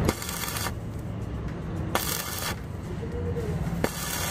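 Stick (arc) welder striking short arcs on a steel rear twist beam: three crackling, sizzling bursts, each about half a second long and starting with a sharp click, roughly two seconds apart. These are tack welds over a crack in the beam.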